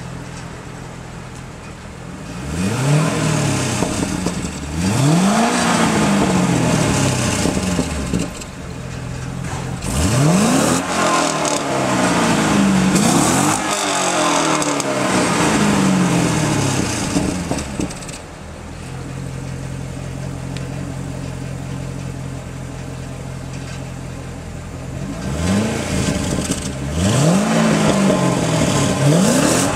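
Chevrolet Corvette C6's 6.0-litre LS2 V8 exhaust idling and being revved in repeated throttle blips, each rising sharply and falling back to idle. The blips come in three clusters, with a longer steady idle in the middle.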